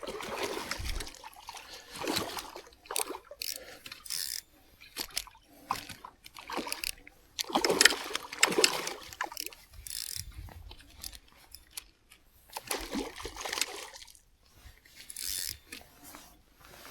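Water splashing and sloshing in irregular bursts as a hooked trout thrashes at the surface while being played in.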